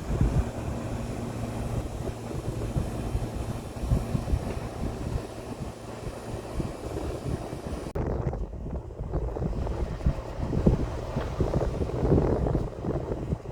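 EF210 electric locomotive and its train passing with a low, uneven rumble, heavily mixed with wind buffeting the microphone.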